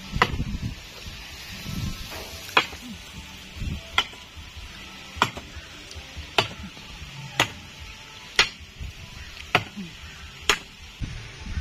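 Machete chopping a wooden stake to a point: about nine sharp chops, roughly one a second.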